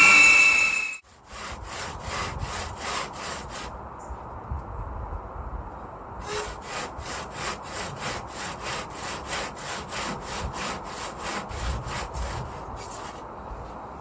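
A power drill whining stops about a second in. Then a hand saw cuts through a soft insulating board in quick back-and-forth strokes, about four a second, pausing for a couple of seconds midway before sawing on.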